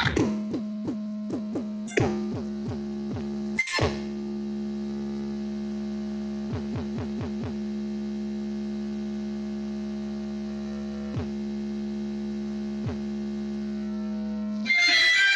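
A homemade car-audio speaker box (two 6-inch Bravox speakers on a Taramps TL500 amplifier) playing a 'base de racha' electronic beat: a held synth drone with a series of quick falling zaps, until a loud, dense section kicks in near the end.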